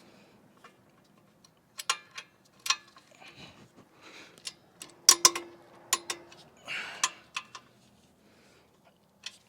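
A torque wrench ratcheting and clicking as bolts are tightened to 65 ft-lb, with scattered sharp metallic clicks and short ratcheting rasps.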